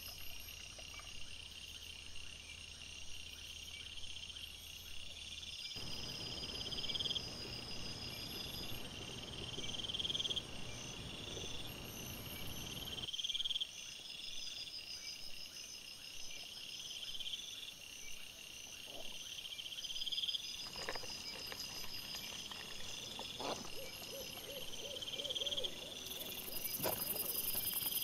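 Night insects, crickets or bush crickets, chirping in a repeating pattern, a rising chirp every second or two over steady higher trills. A stretch of rustling noise comes in the middle, and a few sharp knocks and a short grunt-like sound near the end as wild boar forage close by.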